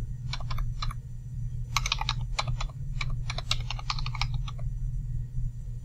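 Typing on a computer keyboard: several quick runs of keystrokes as numbers are keyed in, stopping about four and a half seconds in. A steady low hum runs underneath.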